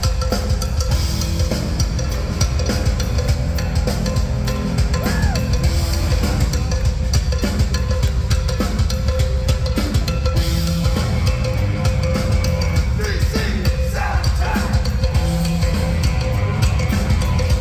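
Hard-rock band playing live at full volume: drum kit, distorted electric guitars and bass, heard through a phone's microphone in the audience.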